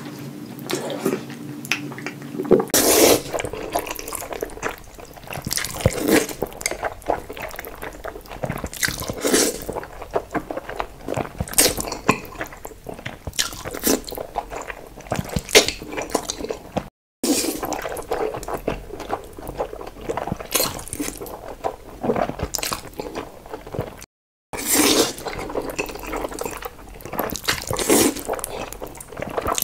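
Close-miked mukbang eating sounds: a few seconds of wet chewing on a stringy cheese pasta bake, then slurping and chewing of jjajangmyeon, thick black-bean-sauce noodles, with many sharp, sticky, wet mouth smacks and clicks. The sound cuts out to silence twice, briefly.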